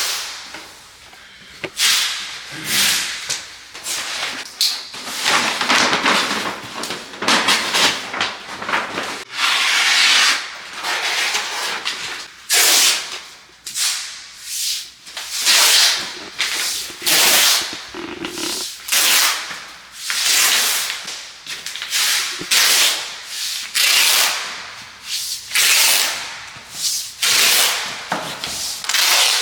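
Drywall joint compound being sanded by hand, back-and-forth rasping strokes at about one a second.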